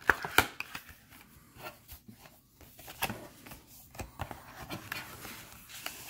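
Cardboard and paper rustling and sliding as hands open a cardboard insert folder and draw out a printed card, with two sharp taps near the start and scattered light taps after.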